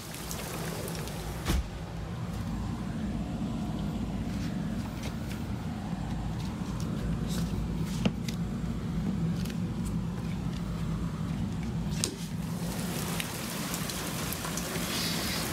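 Rain and small hail falling in strong wind, with a low, steady rumble of wind on the microphone through most of it and a few sharp ticks. Near the end the hiss of the rain comes back up.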